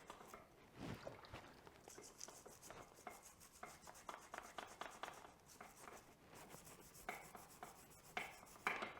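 Brass brush scrubbing the aluminium rear brake caliper of a 2015 Yamaha YZ250FX in short, quick, faint strokes, scraping off baked-in dirt.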